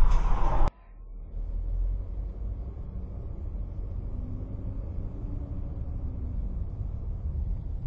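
Louder sound cuts off suddenly under a second in. After that comes a steady low rumble of a car's engine and tyres on the road, heard from inside the cabin.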